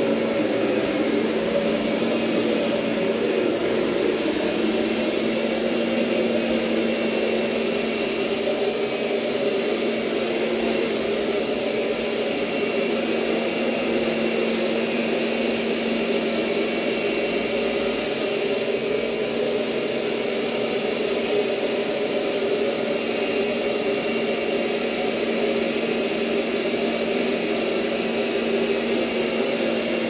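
Kirby upright vacuum running steadily in its carpet shampoo setup, scrubbing the carpet: an even motor whine with a steady low hum underneath.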